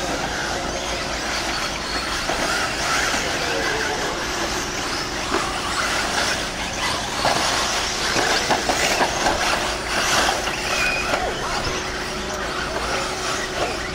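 Several 1/8-scale electric off-road RC buggies racing on a dirt track, with scattered clattering knocks, most of them in the middle of the stretch.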